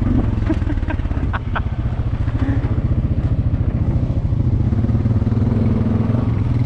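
Honda Foreman ATV's single-cylinder engine running steadily under way, with a few sharp clicks or rattles about a second in.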